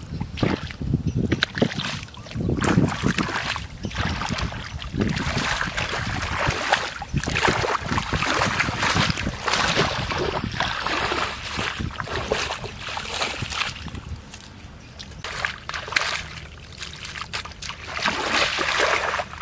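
Muddy water splashing and sloshing as bare feet and hands churn a shallow puddle, in irregular bursts. It eases off for a couple of seconds past the middle, then picks up again near the end.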